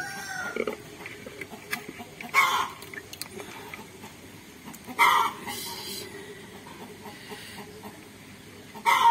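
Chickens clucking, with three loud calls a few seconds apart.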